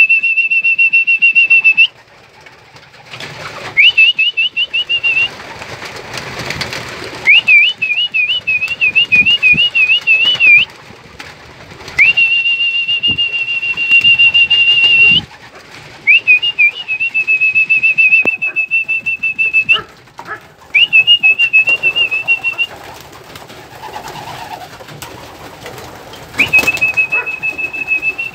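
High-pitched human whistling in about seven bouts with short gaps. Some notes are held steady and some break into fast warbling trills. It is a keeper whistling as pigeons are let out of the loft for a training flight.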